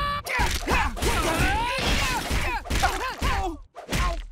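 Cartoon fight sound effects: a rapid flurry of whacks, thuds and crashes mixed with shouts and yelps as a man is beaten with a staff. It ends in one last heavy hit and then cuts off.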